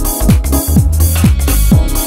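Electronic dance music with a steady kick drum, about two beats a second, over synth chords and bright hi-hats.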